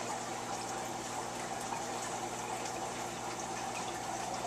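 Steady running, splashing water from the turtle tank's filter pump, with a low steady hum underneath.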